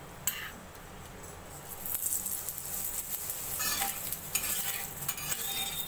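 Oil sizzling on a hot iron tawa under a dal paratha, the sizzle growing louder about two seconds in, with a few clicks of a steel spatula against the tawa.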